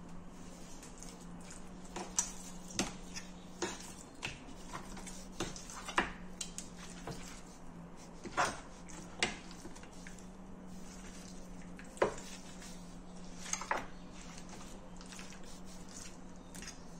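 A metal utensil clinking and scraping against a metal roasting tray at irregular intervals, with soft wet sounds as marinated pork chops are turned in it. A steady low hum runs underneath.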